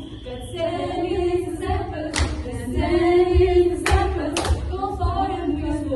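A group of voices singing together in sustained sung phrases, with three sharp claps about two, four and four and a half seconds in.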